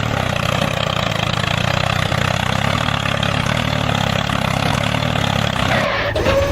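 A small engine running steadily. About six seconds in the sound changes and a steady higher hum starts.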